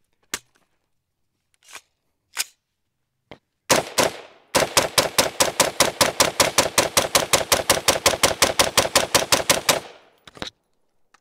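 PSA Sabre 15 AR-15 rifle in 5.56 fired semi-automatically: a few handling clicks, one shot, then a rapid, even string of about forty shots at roughly seven a second for about five seconds.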